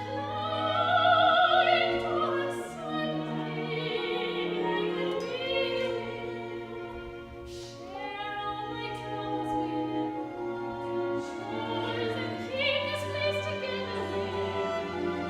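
Soprano singing an operatic aria with wide vibrato, her long held notes rising and falling over sustained instrumental accompaniment.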